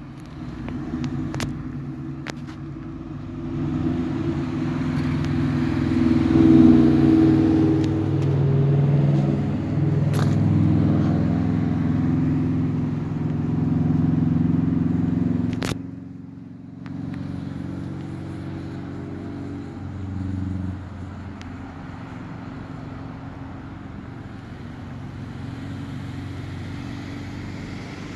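A motor vehicle's engine running close by. It is loudest through the first half, then drops suddenly just past halfway after a sharp click and runs on more quietly.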